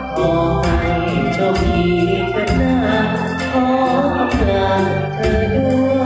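Karaoke backing track of a pop ballad playing through a hall's PA speakers, with a man singing along into a microphone.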